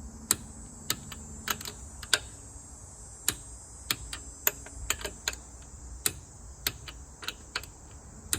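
Torque wrench clicking on the wheel's lug nuts as they are rechecked at 80 foot-pounds: a string of sharp separate clicks, roughly one every half second or so, some in quick pairs.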